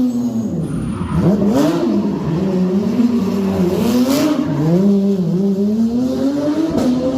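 Race car engine revving up and down in repeated swells, its pitch dipping low about a second in and then climbing and falling again roughly once a second.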